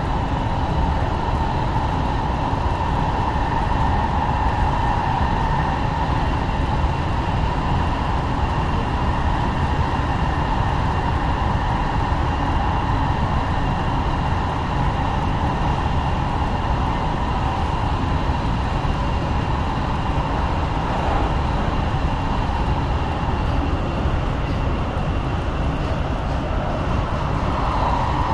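Los Angeles Metro Rail train running steadily, a continuous low rumble and rolling noise with a faint, steady high whine above it.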